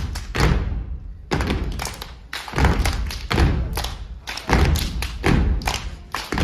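A step team stomping in boots on a stage floor, the percussive beats of a stepping routine, with a short pause about a second in.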